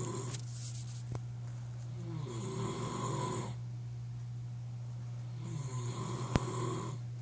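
A man snoring loudly in his sleep: two long snores a few seconds apart, each lasting about a second and a half. A steady low hum runs underneath.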